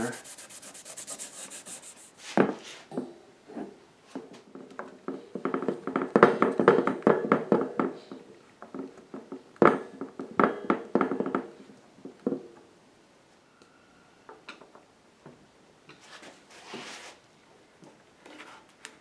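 A pad rubbing alcohol over a tabletop to clear epoxy residue, then a hand screwdriver driving screws that fasten an Eames table's wire base to its top: runs of quick clicks with a few sharp knocks. Faint handling noise near the end.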